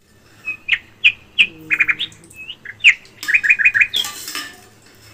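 A small bird chirping: a string of short, high notes, some given singly and some in quick runs of three to five.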